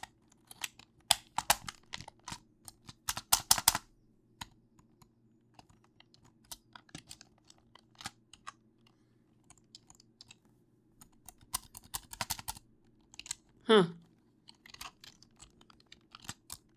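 Keys of a mechanical keyboard clicking and clattering in irregular clusters as the keyboard is pressed and handled, its spacebar stabilizer not seated properly. About three-quarters of the way in, one short, loud sound falls steeply in pitch.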